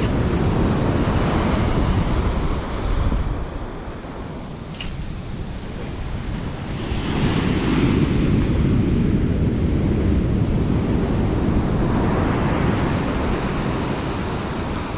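Ocean surf washing up the sand, swelling and easing as waves come in, with wind rumbling on the microphone.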